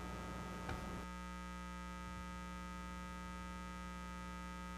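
Steady electrical mains hum made of several fixed tones sounding at once, with a faint hiss under it that drops away about a second in.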